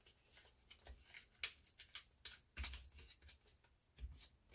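A sheet of paper rustling and crinkling faintly in short, irregular crackles as it is folded and creased by hand, with a couple of soft low thumps of hands against the table.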